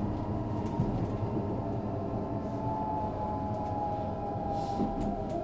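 Inside a moving passenger train: the steady low rumble of wheels and running gear, with a high whine slowly falling in pitch. There are a few faint clicks and a short hiss near the end.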